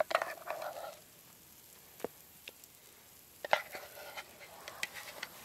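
Spatula scraping mashed potatoes out of a cook pot onto a plate, with clicks and taps of utensil on pot. There is a burst of scraping at the start and another about three and a half seconds in, with a couple of single taps between.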